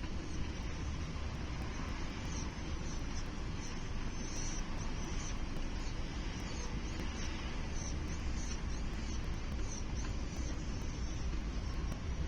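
Steady wind rumble buffeting an outdoor microphone, with faint, short high chirps repeating through the middle.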